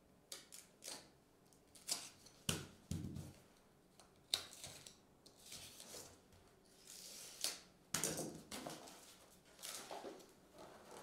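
Faint handling noises of a cardboard trading-card box being cut and opened, then its plastic wrap rustling and a signed photo in a plastic sleeve being slid out. The sounds come as a string of irregular short scrapes, rustles and a few sharp clicks.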